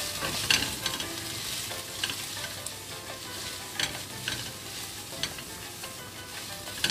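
Spaghetti being stir-fried in butter and olive oil in a nonstick wok: a steady sizzle with several sharp clacks and scrapes of the spatula and chopsticks against the pan as the pasta is tossed.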